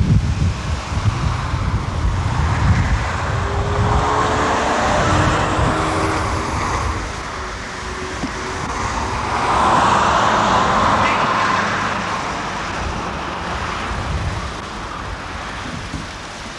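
Road traffic heard through wind rumbling on the microphone; two vehicles swell past, about four and ten seconds in.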